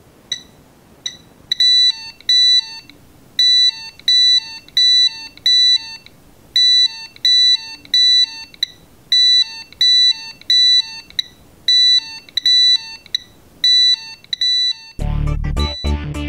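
Arduino multi-gas sensor box's alarm beeping: short electronic beeps, many in quick pairs, about one to two a second, set off by high gas readings. The beeping stops about fifteen seconds in, and electronic music with heavy bass starts.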